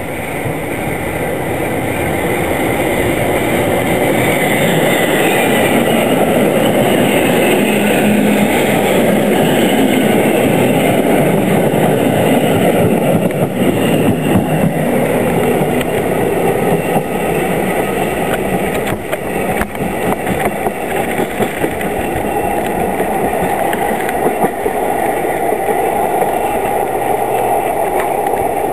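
EN57 electric multiple unit running past at close range: a loud, steady running noise, with scattered clicks from the wheels on the rails around the middle.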